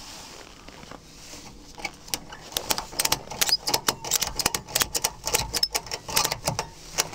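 Ratchet tie-down strap being cranked tight to hold a snowmobile on its truck ramp: quick, irregular metal clicking that starts about two seconds in.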